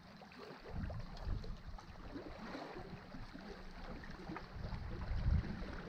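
Wind rumbling on the microphone over sea water washing against shore rocks, with small scattered ticks.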